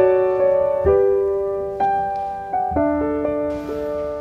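Background piano music: soft notes and chords struck about once a second, each ringing and fading.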